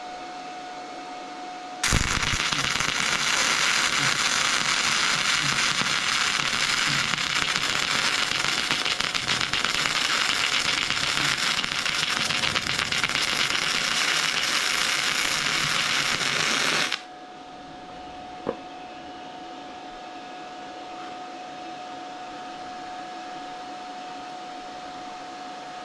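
Flux-core wire welder arc crackling steadily while running a stringer bead on quarter-inch steel plate, starting suddenly about two seconds in and stopping abruptly after about fifteen seconds. A steady hum with a thin whine runs underneath, and a single click follows shortly after the arc stops.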